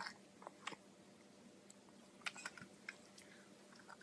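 Faint sips and small clicks from a toddler drinking soup out of a bowl tipped up to her face, a few clicks bunched a little past the middle.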